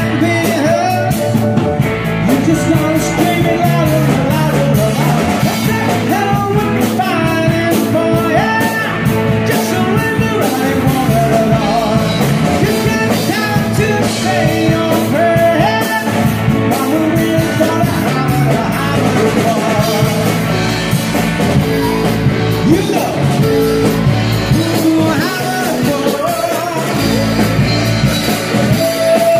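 Live rock and roll band playing: a man singing into a microphone over electric guitars.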